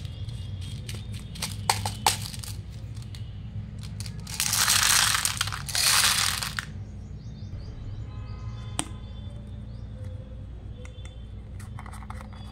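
Small hard candies poured out of a clear plastic tube into a plastic toy bathtub, two pours of rattling pellets, about four to six and a half seconds in. Plastic containers click as they are handled before and after, over a steady low hum.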